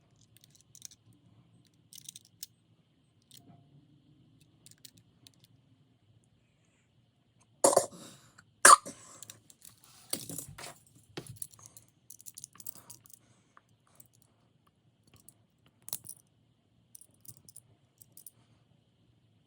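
Die-cast toy cars being handled: scattered light clicks and clinks, with two sharp knocks about eight and nine seconds in.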